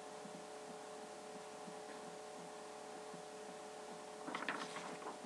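A faint steady hum over room tone. About four seconds in, a sheet of paper rustles and crackles as it is handled.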